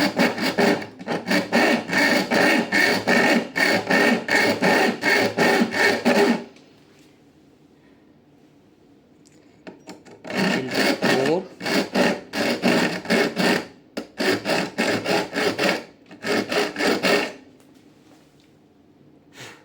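Hacksaw blade sawing a slot into the head of a stainless steel screw, in quick even back-and-forth strokes. It saws for about six seconds, pauses for about four, then saws for about seven more.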